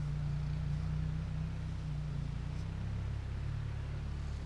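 Off-road vehicle engine idling steadily, a low even drone.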